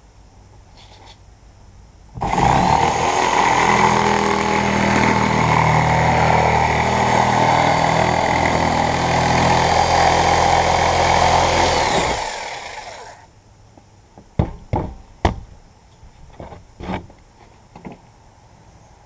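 Power saw cutting through a white board panel: the motor starts suddenly about two seconds in, runs steadily for about ten seconds, then winds down with falling pitch. A few sharp knocks follow.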